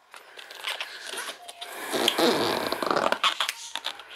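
Inflated latex balloons squeaking and rubbing against each other and against the hands as a yellow 160 twisting balloon is knotted to the neck of a white balloon. The squeaking is loudest about two seconds in.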